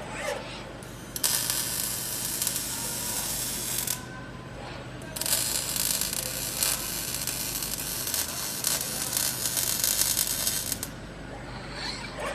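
Robotic arc welding on a steel bed frame: two welds with a steady crackling hiss, one of about three seconds and a longer one of about six, over a steady low hum.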